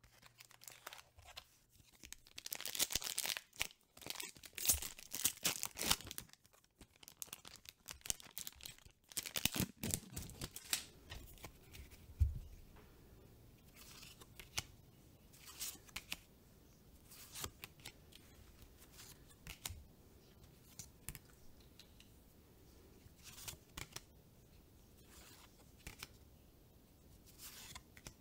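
The foil wrapper of a Magic: The Gathering collector booster pack is torn open and crinkled for about the first ten seconds. After a soft thump, the cards are slid and handled one by one, making short swishes and light clicks.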